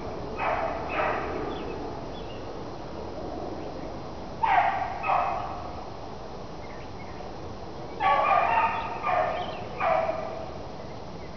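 A lone beagle giving tongue on a cottontail's trail: short baying calls in clusters, two near the start, two more about four and a half seconds in and three or four between eight and ten seconds. The voice means the hound is on the rabbit's scent and driving the track.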